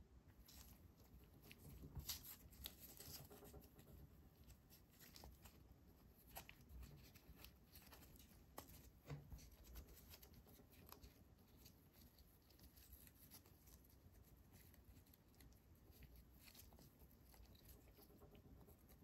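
Faint small clicks and light rustling of plastic LEGO minifigure parts being handled and fitted together with nitrile-gloved hands.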